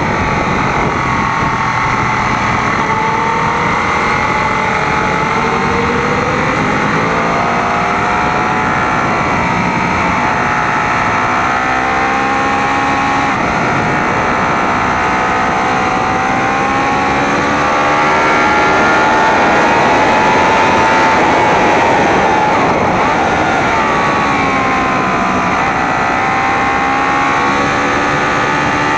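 Sport motorcycle engine running hard at track speed, its pitch rising and falling as the rider works through the revs, over a steady rush of wind noise. It gets a little louder for a few seconds past the middle.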